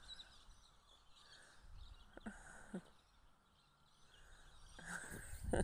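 Faint outdoor ambience with distant birds calling, including two short falling calls a little over two seconds in. Near the end a louder rustling noise rises.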